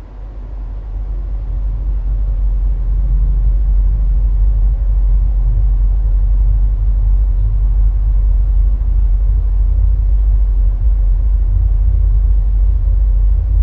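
A deep, steady low rumble that fades in over the first couple of seconds and then holds.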